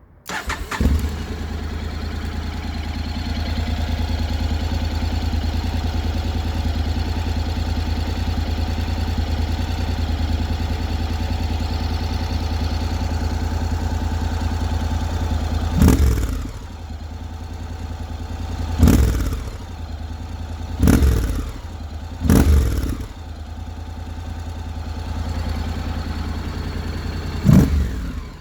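Honda X-ADV 750's parallel-twin engine starting and idling steadily through a Scorpion Red Power aftermarket exhaust fitted with its dB killer. In the second half it is revved in five short throttle blips.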